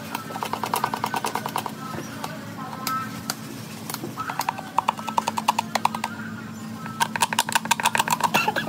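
A helmet shell being sanded by hand with a piece of sandpaper: quick rasping scrubs in three bursts, over a steady low hum.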